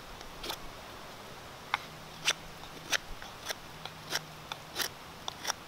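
Knife blade shaving a wooden bow-drill spindle as it is whittled down: about nine short, sharp scraping strokes at an uneven pace, roughly one every half second to second.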